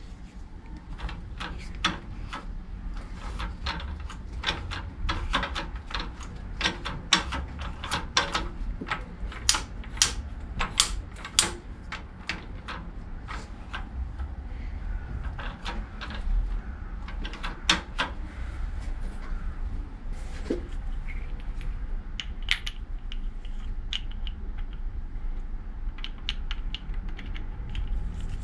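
Metal clicks and clinks of a screwdriver and steel gears being handled in the open gearbox of an Archdale horizontal milling machine, quick and dense for the first dozen seconds, then sparser, over a low steady hum.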